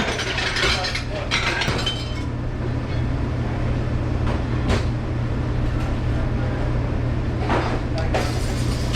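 Dishes and glassware clinking and clattering in a few short bursts, over a steady low drone of kitchen machinery.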